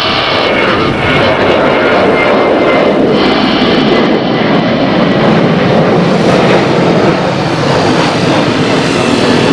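Boeing 737-800's CFM56-7B turbofan engines at climb power just after take-off: a loud, steady jet roar.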